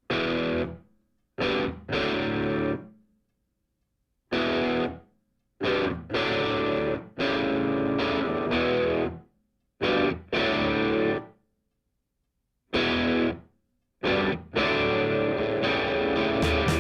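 Music: distorted electric guitar chords struck in separate stabs, each ringing briefly and dying away, with short silences between them and the stabs coming closer together near the end.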